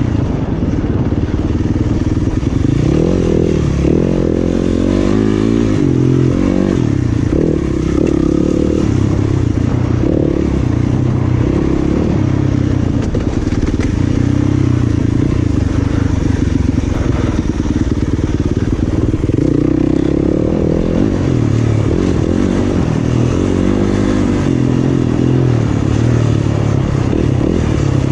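Yamaha off-road dirt bike's single-cylinder engine ridden hard on a trail, its revs rising and falling continuously with the throttle.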